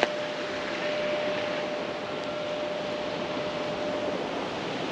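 Steady rushing noise of sea and wind along a rocky shore, with a faint steady tone that stops about four seconds in.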